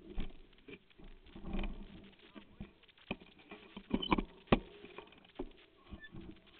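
Irregular knocks, clicks and rattles, with a sharp cluster of the loudest knocks about four seconds in: a camera jolting and rattling in its mount as a mountain bike rides down rough ground.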